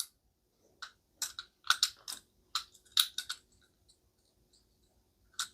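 Faint handling noises from unboxed items: a scatter of short light clicks and crinkles, like plastic packaging or small plastic parts being turned over, for about two and a half seconds, then only a faint steady hum.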